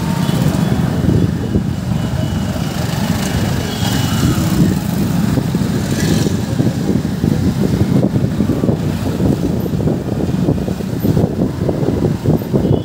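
Motorcycle engine running steadily while riding along a busy street, heard from on board the bike, with surrounding street traffic.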